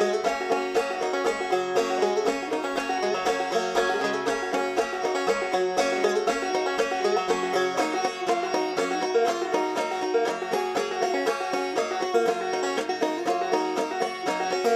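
Music: a plucked string instrument playing a fast, continuous run of notes.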